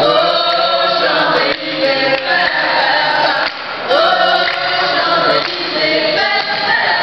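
A small group of women and a man singing together into microphones, in phrases with short breaks between them.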